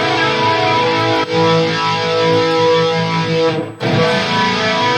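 Electric guitar played through the Valeton GP200 modeler with a chorus effect on. A strummed chord rings out for about four seconds and is struck again near the end.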